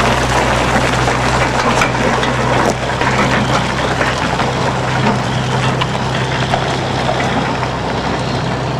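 Heavy diesel log truck with a loaded multi-axle trailer moving slowly across a gravel yard: a steady low engine drone under a broad rumble of tyres on gravel.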